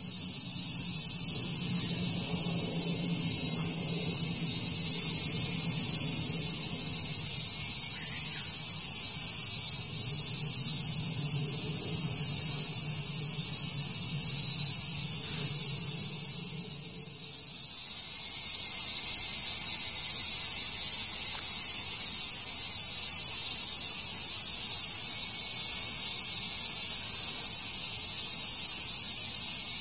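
Dense, steady chorus of cicadas, a high buzzing hiss that dips briefly a little over halfway through.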